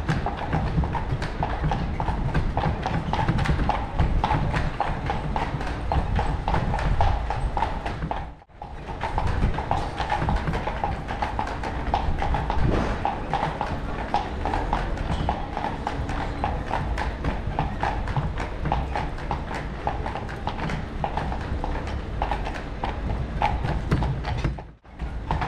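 Horse hooves clip-clopping steadily as a horse-drawn carriage moves along, over a steady low rumble. The sound drops out briefly about eight seconds in and again near the end.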